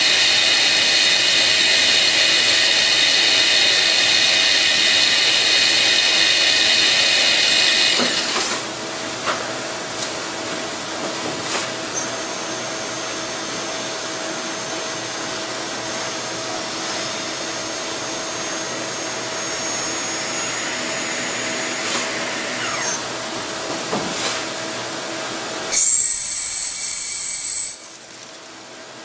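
Hardinge T42 CNC lathe running: a loud, steady high whine for about the first eight seconds, then a quieter steady hum with a few sharp clicks, and a short loud high whine again near the end.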